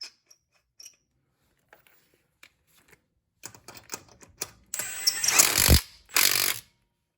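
A few light clicks of handling, then a cordless 3/8-inch Milwaukee impact wrench running in two short loud bursts, a longer one about five seconds in and a brief one just after.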